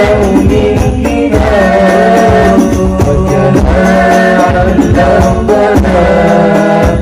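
A hadrah al-Banjari ensemble: male voices singing sholawat in unison into microphones, with long held and ornamented notes, over a steady beat of rebana frame drums.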